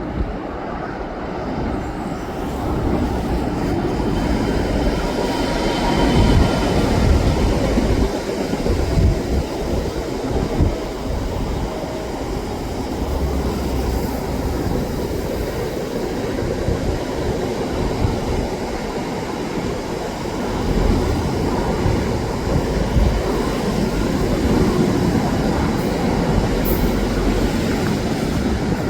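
A train running along the Leeds/Sheffield–Hull railway line below, heard from high above as a continuous rumble of wheels and engine that builds about two seconds in and holds steady.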